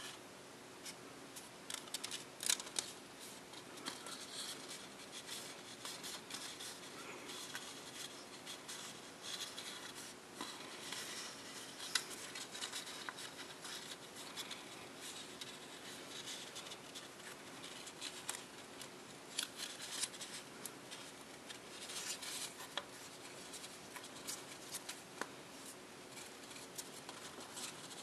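Paper being folded and creased by hand: irregular crisp crackles, rustles and scrapes as fingers press and run along the folds of a printed copy-paper dollar bill.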